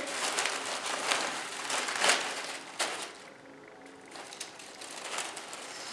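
Dry bean vines rustling and crackling as hands press and arrange them around a planter bowl, on and off, with a quieter stretch a little past the middle.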